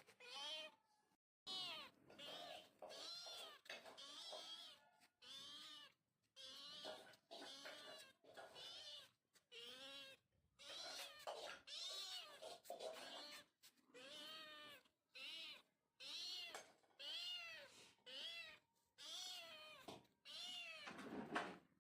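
A domestic cat meowing over and over, about twenty calls in a row, each rising and then falling in pitch, with short pauses between.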